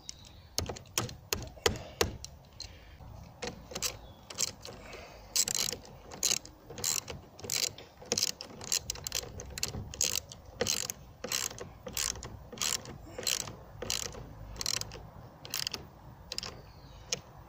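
Ratchet wrench clicking in repeated short strokes, tightening the 10 mm nut on a car battery's negative terminal clamp.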